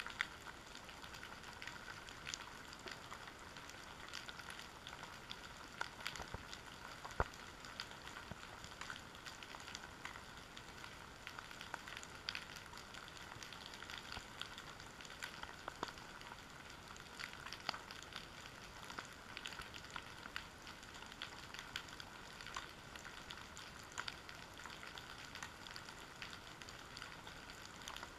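Faint underwater ambience picked up by a submerged camera: a continuous sizzling crackle of many small irregular clicks over a steady hiss, with one sharper knock about seven seconds in.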